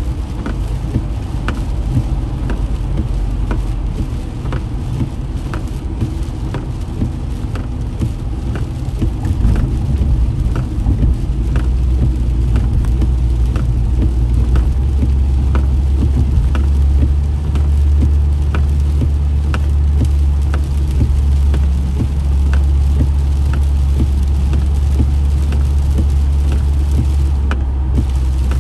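Inside a car driving at highway speed in heavy rain: a steady low rumble of engine and tyres on the wet road, heavier about halfway through. Rain washes against the windshield, and sharp ticks come roughly once a second.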